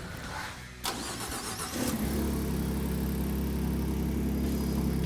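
Ford F-150's 3.5L EcoBoost twin-turbo V6 with a Borla cat-back exhaust being started: a click and a second of cranking, then the engine catches about two seconds in and settles into a steady idle.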